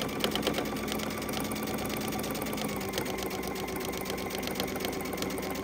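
Sewing machine stitching a seam through several layers of fabric: the motor runs steadily under a rapid, even clatter of the needle, its pitch dropping slightly about halfway through.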